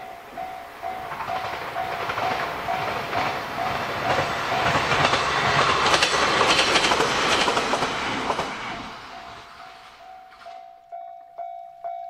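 Japanese level-crossing warning bell ringing steadily at about two strokes a second while an electric commuter train passes, its wheels clattering on the rails; the train noise swells to a peak about halfway and fades away. Near the end the crossing bell rings louder and sharper.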